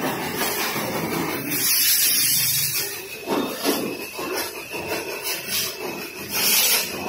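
High-pressure water jet from a pressure-washer lance spraying a motorcycle: a steady hissing spray that swells and fades as the jet moves over the bike and the wet floor.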